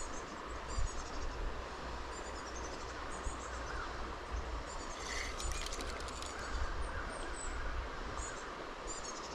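Small birds chirping in short, repeated high calls over a steady outdoor background hiss, with a low rumble underneath.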